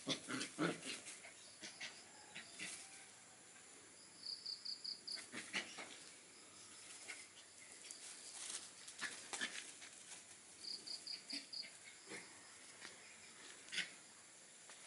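A small dog and a cat play-fighting, heard as scattered short scuffles and the dog's brief yips and growls. A high chirp of about five quick pulses repeats roughly every six seconds.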